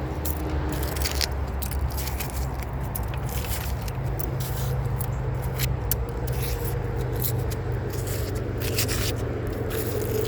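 Rusty wire and small metal scraps scraping and clicking as they are worked off a fishing magnet, many short irregular clicks over a steady low rumble.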